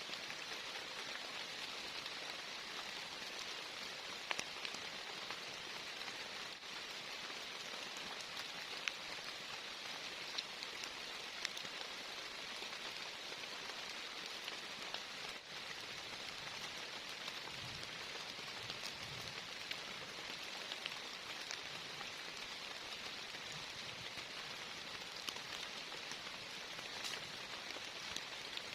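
Heavy rain falling steadily, with a constant hiss and many individual drops ticking and pattering sharply on nearby surfaces.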